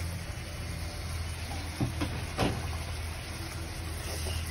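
Spatula scraping and knocking against a wok while chilies, shallots and garlic are stir-fried, a few sharp strokes around two seconds in, over a steady low hum.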